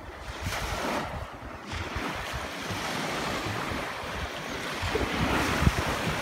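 Small waves washing up on a sandy beach, with wind buffeting the microphone, the gusts growing stronger near the end.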